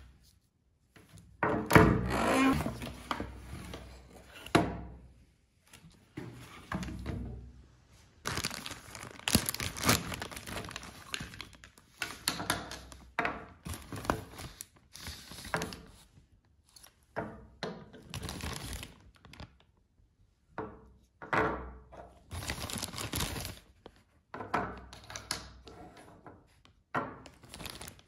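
Clear plastic zip bags crinkling and rustling in bursts as they are handled and opened, with a few sharp thunks, the loudest about two seconds in.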